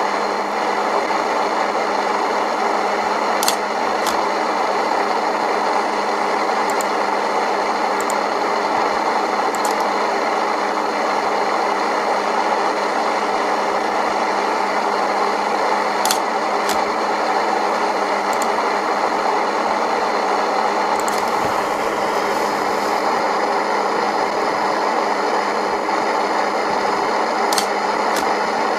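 Steady loud static hiss from an EVP (electronic voice phenomenon) noise generator, left running so that spirits might answer through it, with a few faint clicks.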